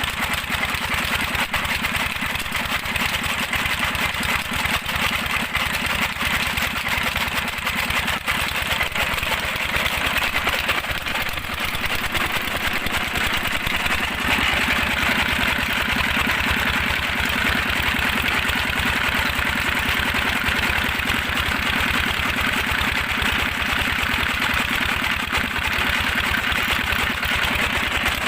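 Petter-type single-cylinder diesel engine running steadily, driving a chaff cutter, with a rapid, even firing beat. The sound grows a little louder and brighter about halfway through.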